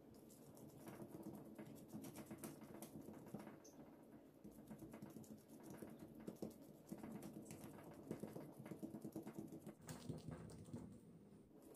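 Faint, quick patting and rustling of a plastic-gloved hand pressing and spreading an oiled round of dough flat on a bamboo cutting board.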